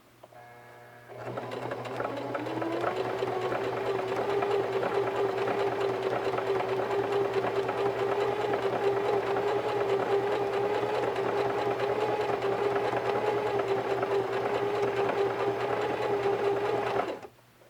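Singer Heavy Duty 4432 sewing machine stitching cotton fabric. It starts about a second in, speeds up over the next two seconds, runs at a steady speed, and stops suddenly near the end. This is a test run after a deep clean and a new feed dog, with the fabric feeding evenly on its own.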